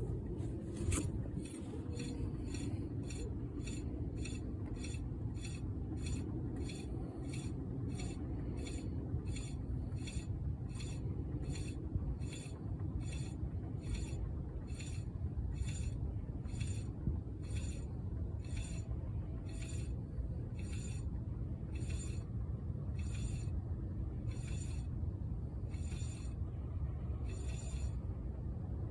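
Rear wheel of a 2011 Kia Sorento, jacked up and spun by hand, coasting down with a light tick or scrape once per turn that slows steadily from about two a second to less than one a second, over a low rumble. The wheel is being spun to listen for a failing rear wheel bearing.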